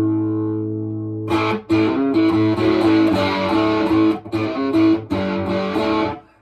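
Electric guitar played through a prototype Illinois Rail Splitter Harmonic Percolator fuzz pedal, giving a distorted tone. A held chord rings out and fades, then a run of short, choppy chords with brief gaps between them, stopping just before the end.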